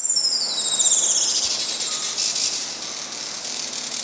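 Juan Fernandez Firecrown hummingbird calling: a high-pitched, rapid trill that opens with notes falling in pitch.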